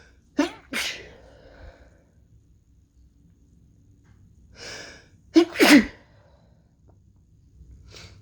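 A person sneezing twice, each sneeze preceded by a breathy intake of breath: the first comes as two quick bursts just under a second in, the second about five and a half seconds in, with another breath in near the end. The sneezing is from an illness that the uploader takes for a cold.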